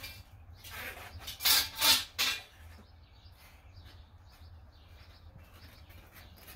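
Handling noise: a few short rustling, scraping sounds between about one and two seconds in, as balloons and party gear are moved about. After that only a faint low hum.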